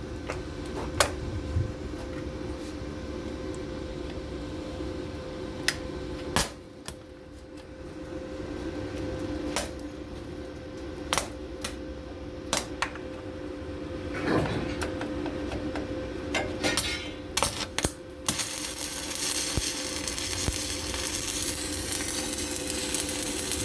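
Scattered metallic clicks and knocks over a steady hum, as a steel pump discharge pipe is set in alignment. About three-quarters of the way through, an arc welding arc strikes and crackles steadily to the end, laying a tack weld on the pipe joint.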